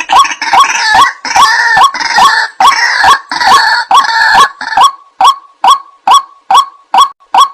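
White-breasted waterhen calls: a regular run of short, honking 'kwak' notes, about two and a half a second. For the first few seconds a harsher chorus of overlapping calls runs over them, then the single notes carry on alone.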